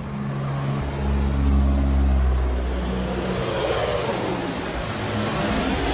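A motor vehicle's engine hums steadily, loudest in the first half. About three seconds in, a rising rush of engine and tyre noise follows as a vehicle drives past on the road.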